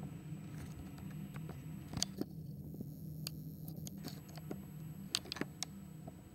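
Low, steady rumble of the freight train's coal wagons rolling past, muffled through a closed window. Scattered sharp clicks and taps sound over it, the loudest about two seconds in and around five seconds in.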